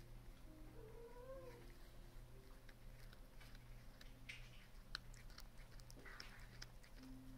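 A cat gives one short, soft meow that rises and falls about a second in, then chews a used paper tissue, with faint small clicks and rustles.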